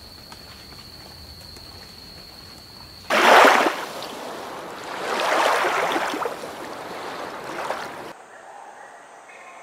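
Grey heron making three rough, noisy bursts of sound: a sudden loud one about three seconds in, then two that swell and fade. Before them there is only a faint steady background with a thin high whine.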